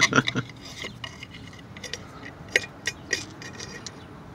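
A few scattered light clicks and taps from a hand handling the round air cleaner lid on the throttle-body intake.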